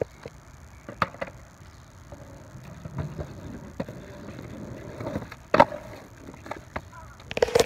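Skateboard rolling on a concrete sidewalk, its wheels giving a low rumble with sharp clacks. The loudest clack comes about five and a half seconds in, as the board goes off the sidewalk onto the street.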